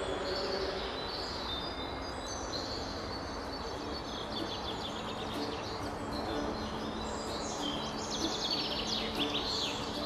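Several songbirds singing and calling at once, short chirps and trills overlapping throughout, over a steady background hiss.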